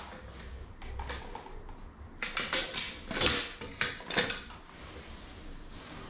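Clicks and clatter of a metal caulking gun and hard plastic cat-flap parts being handled and set down on a tiled floor. A few light clicks come first, then a busier run of knocks about two to four and a half seconds in.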